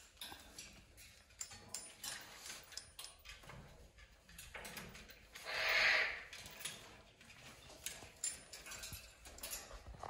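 Scattered clicks and knocks as a raccoon climbs and chews on wooden perches and the top of a wire parrot cage, with one harsh, raspy macaw squawk about a second long just past the middle.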